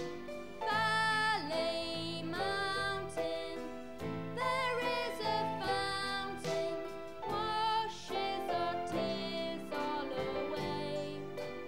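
A young solo singer singing a song over instrumental accompaniment, holding notes with vibrato.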